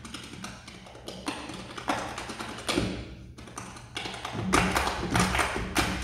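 Small percussion ensemble playing a sparse piece of irregular taps and knocks mixed with short swishing strokes, growing busier and louder near the end.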